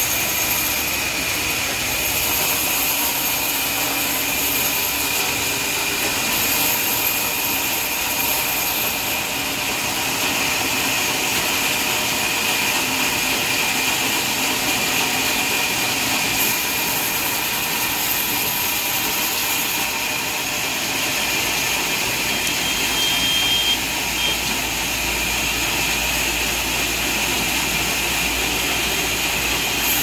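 Large vertical band saw running and cutting lengthwise through a mahogany log, a steady high whine over hiss. A low hum joins about two-thirds of the way through.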